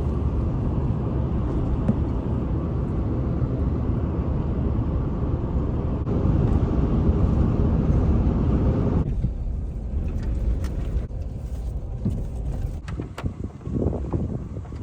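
A vehicle driving, a steady low rumble that stops abruptly about nine seconds in. Quieter noise with scattered clicks follows.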